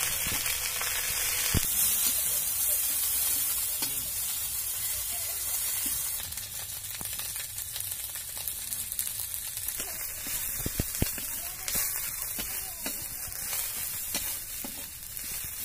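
Onions and spices sizzling in hot oil in an iron kadai, with a metal spatula scraping through the mixture and a few sharp taps against the pan.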